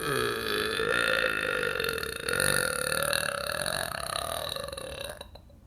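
A woman's long, loud burp. It starts abruptly, holds a slightly wavering pitch for about five seconds, then fades out near the end.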